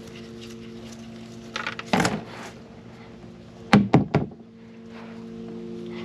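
Two short clusters of sharp knocks and clatters, about two seconds apart, over a steady low hum.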